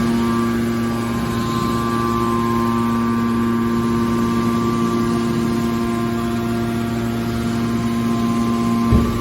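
Hydraulic scrap-metal baler running: a steady hum from its pump and motor, with one knock near the end.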